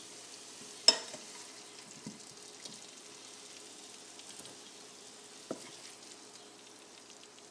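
Oil in a stainless steel frying pan still sizzling faintly around shallow-fried potatoes after the heat is turned off, while a wooden spatula scoops them out into a glass bowl. The spatula knocks sharply against the dishes about a second in and again a few seconds later.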